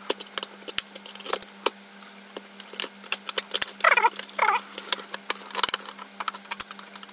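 Plastic router case being prised open with a metal tool, played back at four times speed: a rapid string of sharp clicks and snaps from the case clips and the tool on the plastic. There are two short high-pitched chattering bursts about four seconds in, over a steady low hum.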